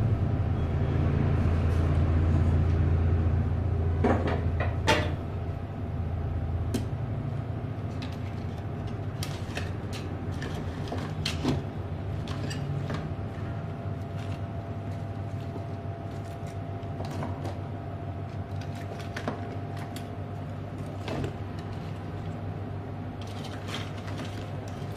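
Scattered light clicks and taps of small tools and parts being handled on a repair workbench, over a steady low hum that is louder for the first few seconds.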